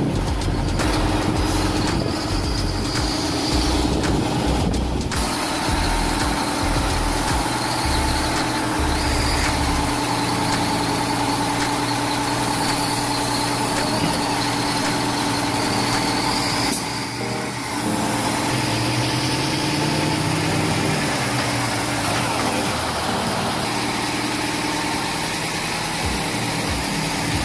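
Heavy truck engine running steadily under load, with a brief drop and change in the sound about two-thirds of the way through and a rev that rises and falls soon after.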